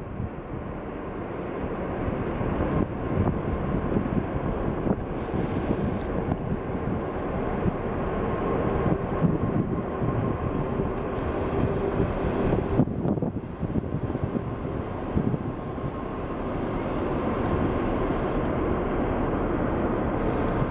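Large cruise ferry passing close by, its engines and ventilation making a steady low rumble with a faint steady hum that grows slowly louder, dipping briefly about two-thirds of the way through.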